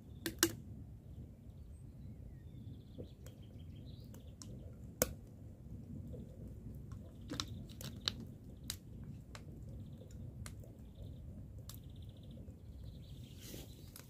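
Firewood and kindling giving scattered sharp snaps and clicks while a fire is being made, the loudest about half a second in and again about five seconds in. Faint bird chirps sound over a low steady rumble.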